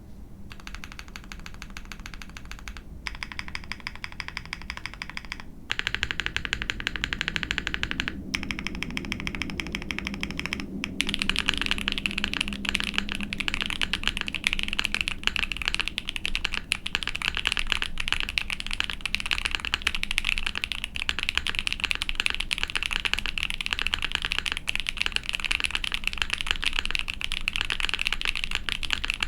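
Mechanical keyboard typing: an Ai03 Vega with a POM plate and GMK keycaps on lubed Cotton Candy Boba tactile Frankenswitches, a fast, dense clatter of keystrokes. It comes in a few short runs with brief breaks in the first ten seconds or so, then settles into a steady, slightly louder stretch of typing.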